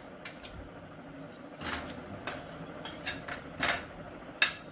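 Metal spoon and fork clinking and scraping against ceramic plates while eating: half a dozen separate short clinks, the sharpest near the end.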